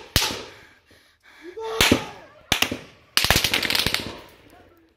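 Gunfire with echoes: single shots a second or so apart, then a rapid burst of automatic fire about three seconds in.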